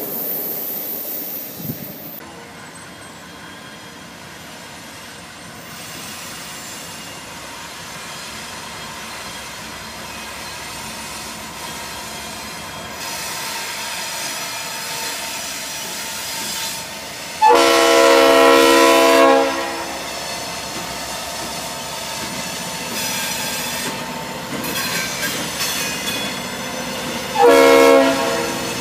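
Norfolk Southern GE Dash 8-40CW locomotive 8321 sounding its air horn as it approaches and passes at the head of a freight train: one long blast about two-thirds of the way through and a short one near the end, over the steady rumble and wheel noise of the train. At the start, the noise of a departing Amtrak passenger train fades away.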